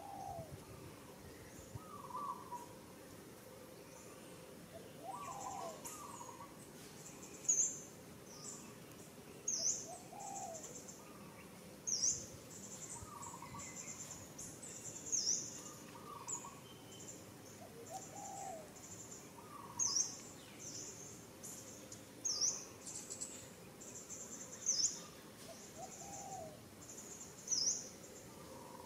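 Birds calling and insects buzzing outdoors: a short, sharp high call repeats every two to three seconds over a steady high insect drone, with softer falling hoot-like notes lower down between them.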